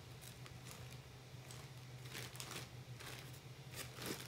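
Faint rustling and crinkling of a clear plastic bag being handled, in a few soft scattered crinkles, over a steady low hum.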